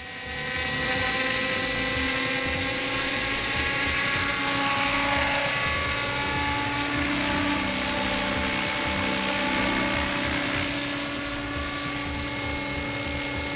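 Electric RC model helicopter with T-Rex 600 mechanics lifting off and flying. A steady high motor-and-gear whine over rotor noise swells up over the first second or so, then holds steady.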